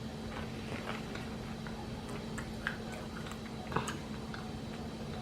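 A person chewing food with the mouth close to the microphone: scattered soft, wet mouth clicks and smacks every second or so, over a faint steady hum.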